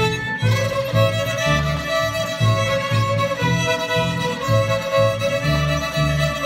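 Fiddles and a plucked upright bass playing a fiddle tune together, the bass keeping a steady beat of about two notes a second under the bowed melody.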